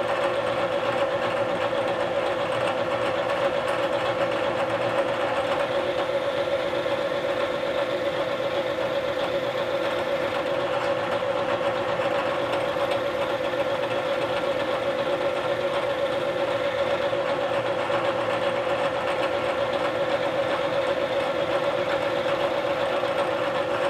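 Bridgeport vertical milling machine running, its half-inch end mill facing the top of an aluminum block as the table is fed under it: a steady pitched hum over a constant noise.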